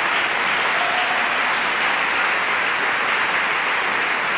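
Large audience applauding, a steady dense clapping that holds at one level throughout.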